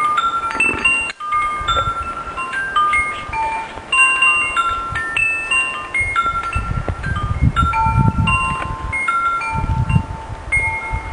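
Wind chimes ringing steadily in the wind, many clear tones at different pitches struck and overlapping. From about six and a half seconds in, gusts of wind rumble on the microphone.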